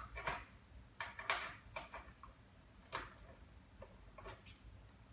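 Hardware of an aluminium crank window (lock and crank handle at the bottom of the sash) clicking as it is worked by hand: about seven sharp, irregularly spaced clicks.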